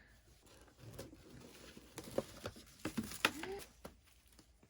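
Soft rustling and light taps from baby clothes being handled and laid out, with a brief soft voice sound a little past three seconds in.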